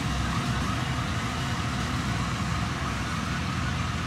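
Combine harvester cutting paddy, its engine and threshing gear running steadily, with a faint wavering whine over the engine drone.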